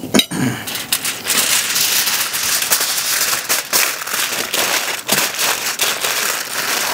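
Aluminum foil crinkling and crackling as it is folded over and crimped shut by hand, a dense run of small crackles throughout.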